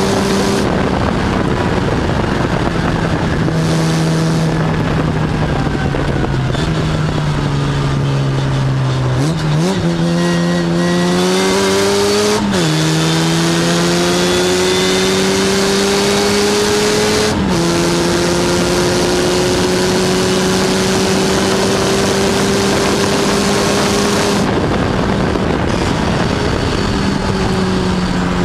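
1957 Lotus Seven S1's engine driven hard up a hillclimb, heard from the open cockpit. The revs sag slowly for the first third, then jump sharply at a downshift. They fall suddenly at one upshift, climb, and fall again at a second upshift, then pull on steadily.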